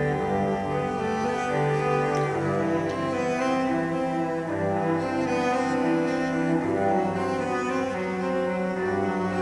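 Background music: slow bowed strings with a cello in the lead, notes held and changing every second or so.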